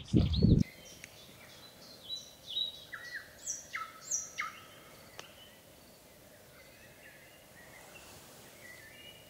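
Small birds singing: a quick run of short, clear whistled notes between about two and five seconds in, then a few fainter chirps over a quiet, steady outdoor background.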